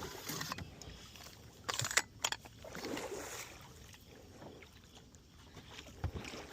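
Water sloshing and lapping around a small fishing boat, with a few sharp knocks of handling on the boat about two seconds in and again near the end.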